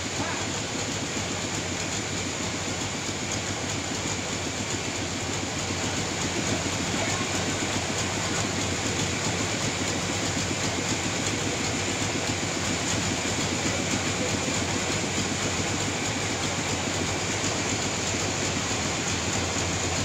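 Sawmill saw running steadily as it cuts lengthwise through a large trembesi (rain tree) log, a continuous machine noise that grows slightly louder about six seconds in.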